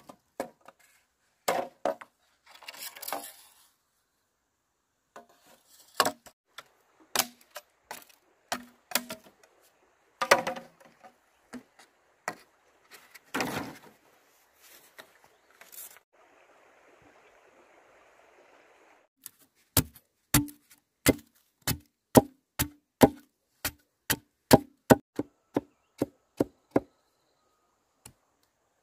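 Machete chopping green bamboo poles: scattered sharp knocks and a few longer scraping strokes at first, then a steady run of quick chops, about three a second, from about twenty seconds in.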